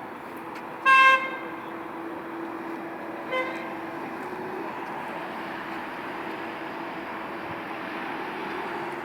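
A vehicle horn gives a short loud toot about a second in, then a fainter, shorter toot a couple of seconds later, over steady traffic noise from passing cars.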